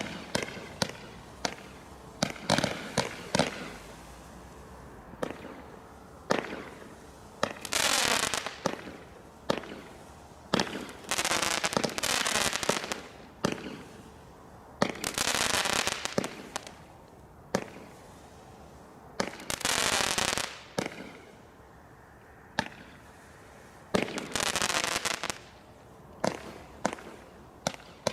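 Fireworks from a Guy Fawkes Selection Box going off in sequence: many sharp cracks and bangs, with several longer hissing bursts of about a second each, at roughly 8, 11 to 12, 15, 20 and 25 seconds in.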